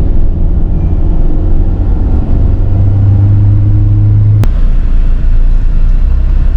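Steady engine drone and road rumble heard from inside a moving vehicle. About four and a half seconds in there is a sharp click, and the low engine tone drops away.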